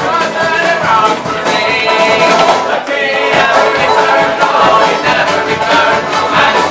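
Irish folk band playing live with fiddles, banjo, guitars, bodhrán and double bass. A bowed fiddle melody runs over a steady strummed and drummed beat.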